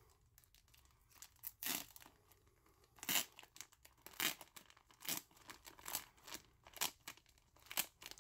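Clear plastic wrapping on a comic book being picked at and peeled open by hand: irregular crinkling and crackling, with a few sharper crackles.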